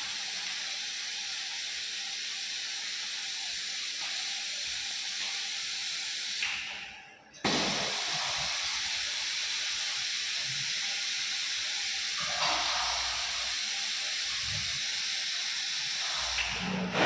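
Steady hiss, broken off briefly about seven seconds in, then starting again abruptly and running on until it fades near the end.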